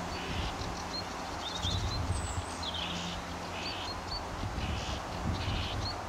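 Small songbirds singing: short harsh notes repeated about once a second, with thin high chirps between them, over a low rumble.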